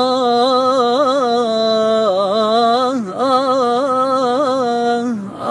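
A man singing a Gulf Arabic sheila (mawwal) unaccompanied, drawing out long held notes with wavering ornaments, the pitch dipping briefly about two and three seconds in.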